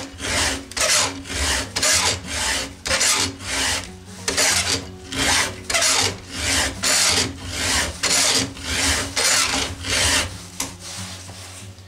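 Files in a Stihl file guide rasping across a chainsaw chain's cutter tooth in steady push strokes, about two a second, sharpening a dull tooth. The strokes thin out and stop in the last second or so.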